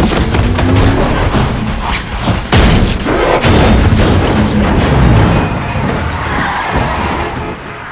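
Film sound effects of an SUV crashing and tumbling end over end on a highway: heavy booms and crunching metal impacts, with a sharp crash about two and a half seconds in and another a second later, dying down over the last couple of seconds. Orchestral film score plays underneath.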